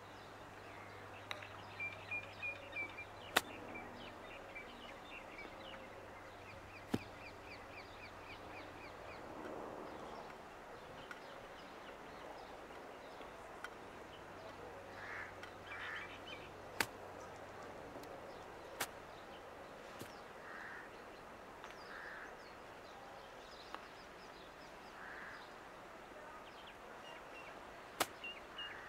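A golf wedge chipping balls off the grass: about six sharp clicks of the club striking the ball, spaced a few seconds apart. Birds chirp and call in the background over a low steady hum.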